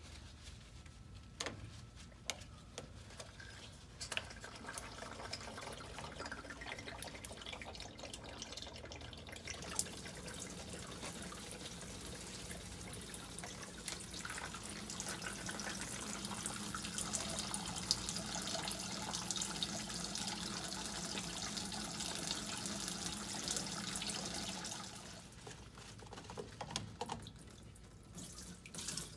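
Diesel fuel draining in a thin steady stream from the opened petcock valve at the bottom of a truck's fuel filter into a catch pan. It builds over the first ten seconds and stops about 25 seconds in.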